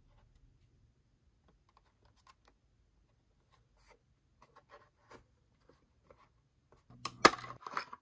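Toy packaging handled by hand: scattered soft ticks and rustles, then a louder burst of crinkling with a sharp click about seven seconds in.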